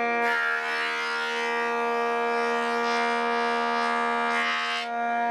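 Thickness planer cutting a glued-up hardwood panel: a rushing planing noise starts just after the start and stops near the end, over a steady pitched whine.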